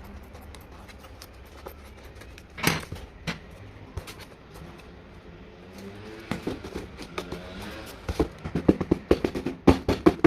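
Scattered knocks and clicks, then a quick run of sharper, louder knocks in the last two seconds.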